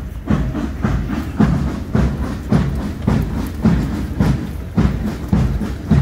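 Many pairs of combat boots striking the tarmac in unison as a column of army cadets marches in step, a regular crunching beat of about two steps a second.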